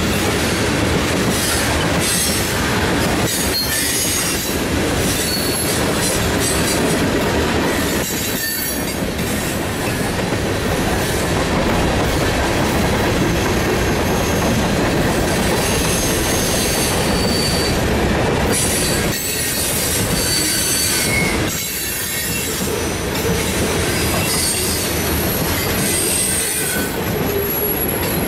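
Freight cars rolling past at close range, a steady rumble and clatter of steel wheels on rail, with thin high wheel squeals that come and go.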